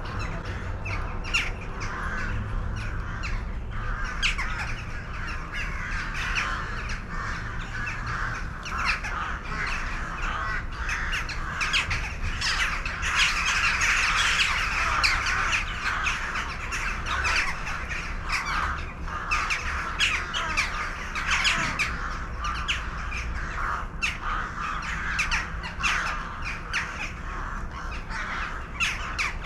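Many birds calling at once: a dense, continuous chatter of short overlapping calls, over a low steady rumble.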